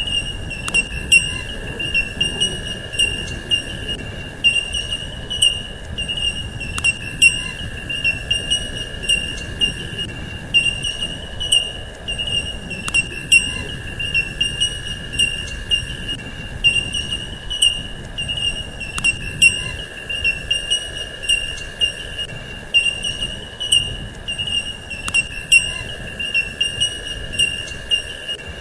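Steady insect chirring, with a warbling high tone over a steadier lower one, and faint ticks and pulses about once a second.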